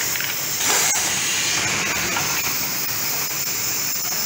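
Pneumatic automatic cap-placing machine running with a steady hiss. About two-thirds of a second in comes a louder, brief burst of air exhausting.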